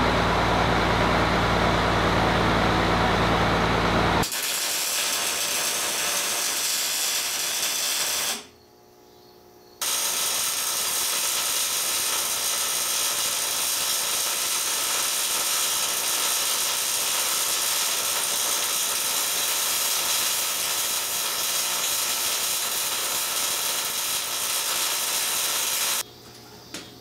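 A boom truck's engine running steadily, then wire-feed welding on steel auger flighting: the arc's steady crackling hiss, which stops briefly about a third of the way in, starts again and cuts off near the end.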